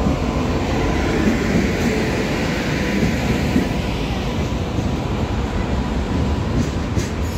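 Indian Railways electric locomotive and its passenger coaches rolling past, a loud steady rumble of wheels on the rails.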